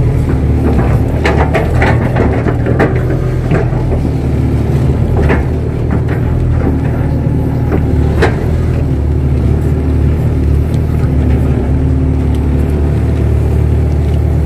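Kato tracked excavator's diesel engine running steadily under work, with a few sharp knocks and clanks scattered through the first eight seconds or so.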